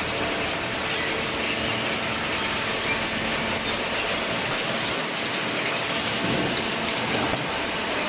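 Inclined chain-slat feed conveyor of a cardboard baler running with a steady mechanical rattle.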